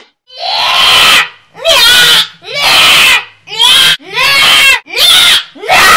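A child's voice shrieking in a run of about six loud, high squeals without words, each under a second long with short gaps between.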